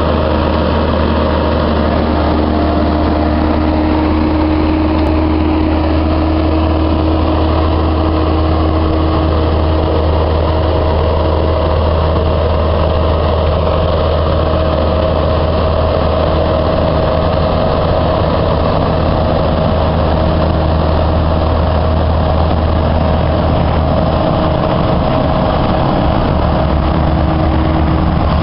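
Kobelco SK135SR excavator's diesel engine idling steadily, with a deep hum and a constant level throughout.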